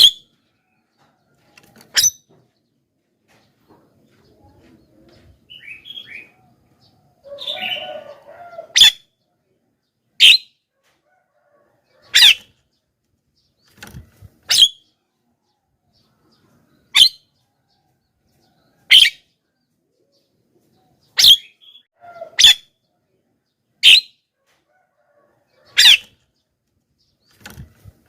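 Javan myna giving loud, sharp, short calls about every two seconds, with a stretch of softer chattering between them about a quarter of the way in.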